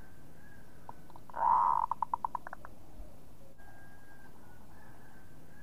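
Zebra dove (perkutut) cooing: two soft opening notes, one loud coo, then a quick run of short clipped notes that dies away, all about a second and a half long.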